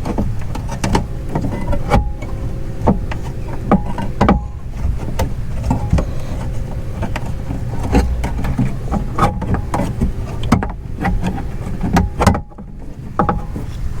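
Clicks, knocks and rattles of hands working the window regulator cable and motor inside a BMW 328i door, fitting the cable hook into place, over a steady low rumble.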